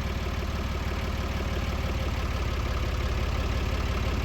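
Engine of the machine holding the beam, idling steadily with an even low pulse.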